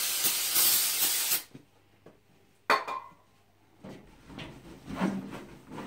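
Aerosol can of brake cleaner sprayed onto a cloth rag: one steady hiss of about a second and a half, then a short second burst just before three seconds in. In the last couple of seconds the rag rubs back and forth on the dryer's enamel top.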